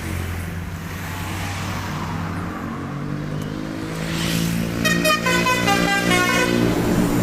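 A bus engine running and growing louder, then about five seconds in a Basuri telolet musical horn plays a quick tune of short stepped notes over it.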